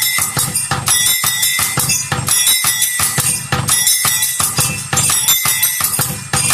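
A multi-sound bell device being played: rapid, continuous strikes of metal bells ringing high, mixed with low drum-like thumps in a dense rhythmic clatter.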